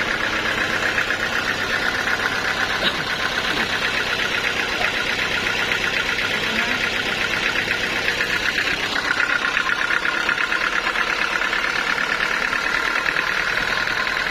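Sawmill machinery running steadily: an even mechanical drone with a rapid, regular pulse that grows a little stronger about nine seconds in.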